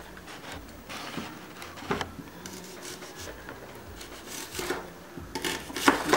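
Kitchen knife slicing through an onion and knocking on a plastic cutting board: a few irregular strokes, the loudest about two seconds in and several in quick succession near the end.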